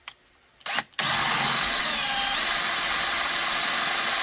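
Power drill with a 1/4-inch bit drilling out a rivet in kydex. After two short blips, the drill runs steadily from about a second in, pressed hard, with a high whine that briefly drops in pitch and then settles.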